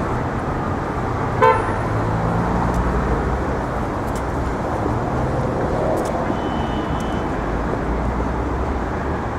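City street traffic: vehicle engines running and passing with a steady low hum, and a short car horn toot about a second and a half in.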